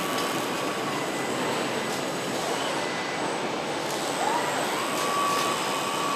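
Steady, dense machinery noise of a car-body welding line with industrial robots at work. About four seconds in, a thin whine rises and then holds.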